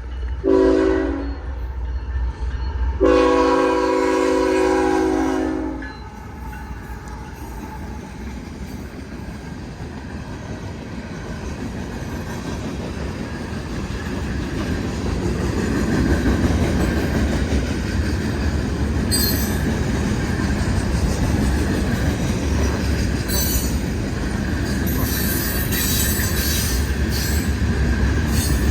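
Freight locomotive horn sounding a short blast and then a long one, the close of the grade-crossing signal, followed by the freight train running past with a rumble that builds steadily. Steel wheels squeal on the rails at times in the second half.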